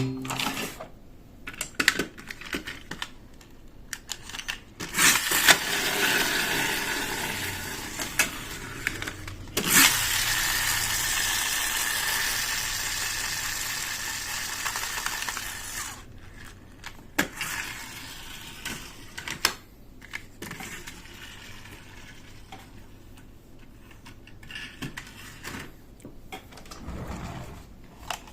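Plastic toy pieces being handled, with scattered clicks and rattles, and a steady whirring or rustling noise that runs for several seconds in the middle and fades out.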